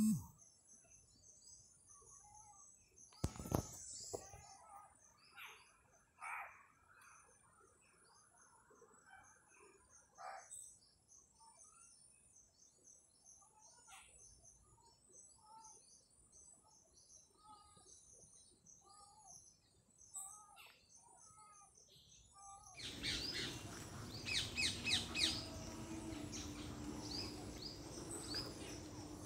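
Birds chirping, with a few metal knocks and scrapes from a slotted spoon stirring potato and eggplant pieces in a kadhai. About twenty-three seconds in, a steady hiss with a low hum starts suddenly.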